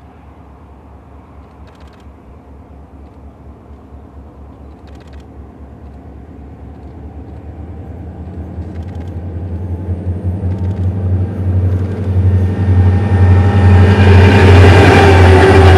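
CLP- and CLF-class diesel locomotives hauling a grain train, approaching: a low, throbbing engine drone that grows steadily louder and is loudest near the end as the locomotives draw level.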